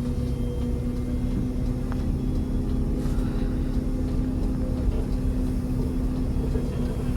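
Tour bus engine running with a steady low drone, heard from inside the passenger cabin.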